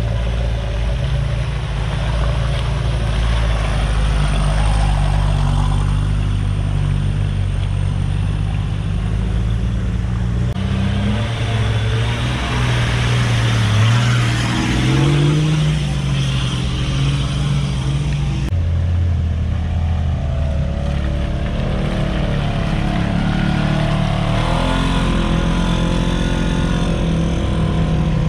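Off-road 4x4 engines running and revving as vehicles work through deep mud, the engine pitch rising and falling. The sound changes abruptly twice, about a third and two-thirds of the way through.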